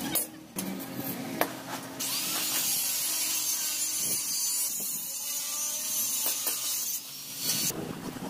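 A metalworking tool on steel tube gives a steady, scraping hiss from about two seconds in until about seven seconds, with abrupt changes in the sound at the start and near the end.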